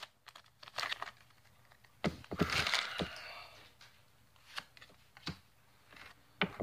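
A Pokémon trading-card booster pack and its cards being handled: the foil wrapper gives a brief crinkly rustle about two seconds in, and the cards make a few light clicks and snaps.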